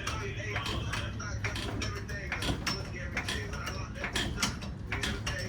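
Irregular mechanical clicks and rattles over a steady low hum.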